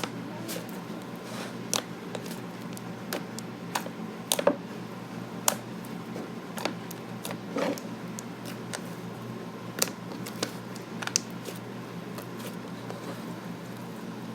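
Slime being poked with fingers: irregular small clicks and sticky squelches, a few of them louder, over a steady low hum.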